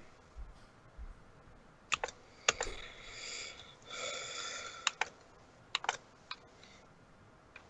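Scattered clicks and taps on a computer keyboard and mouse, with two short stretches of scraping or rustling noise near the middle.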